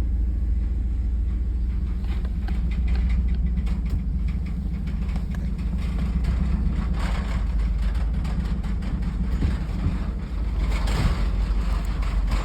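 Vehicle driving slowly: a steady low engine and road rumble, with louder rattles about seven and eleven seconds in.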